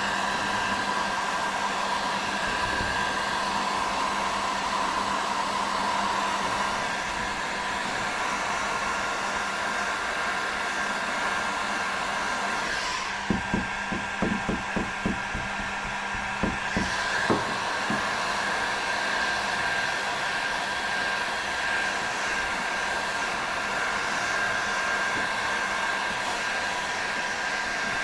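Heat gun blowing steadily while plastic patches are melted onto a kayak hull. A short run of light knocks comes about halfway through.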